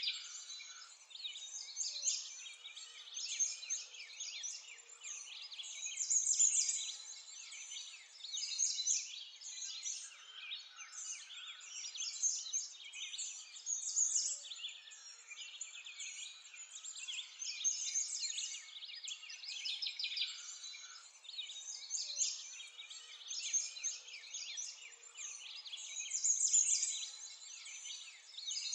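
A chorus of small songbirds, many short, high chirps and calls overlapping without a break.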